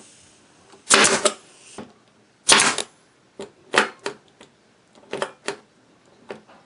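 Hammer driving nails into plywood: sharp, ringing strikes about once a second, the heaviest about a second in and again near 2.5 s, then lighter taps.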